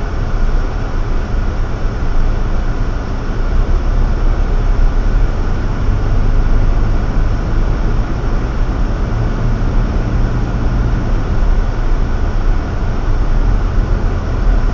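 Car driving at about 30–40 km/h on a snow-covered road, heard from inside the cabin through a dashcam microphone: a steady low rumble of engine and tyre noise.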